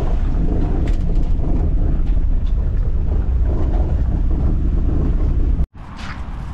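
Steady low rumble of a vehicle on the move, with wind noise over it. It stops abruptly near the end, and a quieter background with a few light clicks follows.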